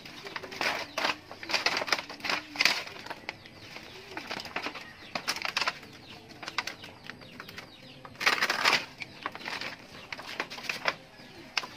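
Knife hacking and tearing through the fibrous, juicy stalk of a banana plant, in several bursts of rapid crunchy crackling.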